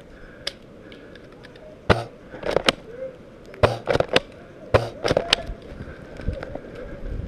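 Airsoft rifles firing: a string of sharp cracks, about nine in clusters, starting about two seconds in and stopping a little past the five-second mark.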